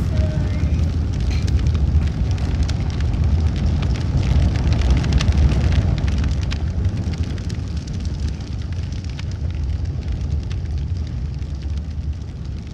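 A loud, continuous low rumble with scattered crackling and no steady pitch, easing off slightly towards the end.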